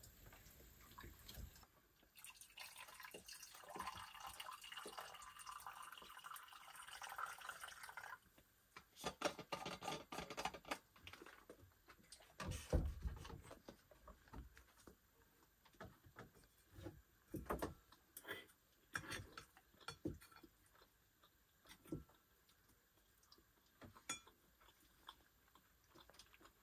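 Liquid poured from a steel thermos flask into a metal mug for about six seconds, the pitch of the pour rising as the mug fills. Then scattered clinks and knocks, with one louder thump about halfway through.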